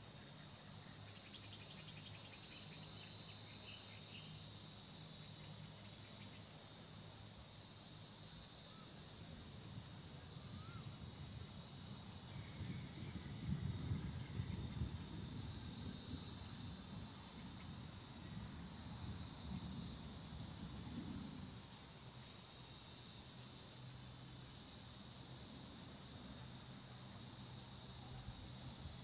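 Cicadas singing in the trees: a steady, high-pitched shrill drone with no breaks.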